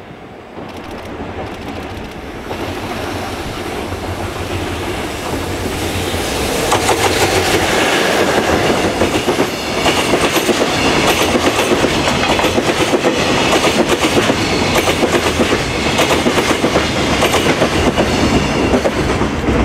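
JR Freight EF66 electric locomotive hauling a container freight train past at speed: the rumble grows louder over the first several seconds as the train approaches, then the container wagons run by with a steady, rapid clickety-clack of wheels over the rail joints.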